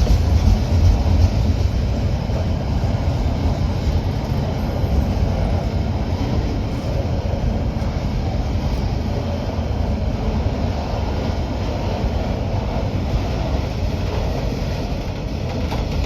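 A train rolling past at close range: a steady, loud rumble of wheels on rail that eases slightly after the first couple of seconds.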